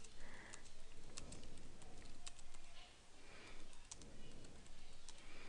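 Typing on a computer keyboard: an irregular run of light key clicks as a chat message is typed out.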